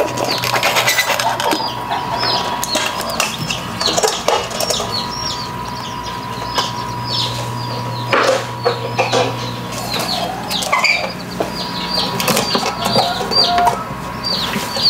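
A box of day-old chicks peeping continuously: many shrill, short, downward-sliding cheeps overlapping, with a few rustles and knocks from handling.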